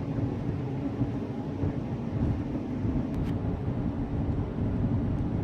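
Steady engine drone and road noise of a car being driven, with a constant hum and a low rumble.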